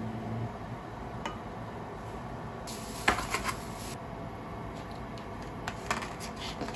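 Wooden chopsticks clicking against a ceramic plate and a plastic food container as fruit pieces are moved onto the plate, a few sharp taps with a quick cluster of them about three seconds in. A low hum cuts off about half a second in.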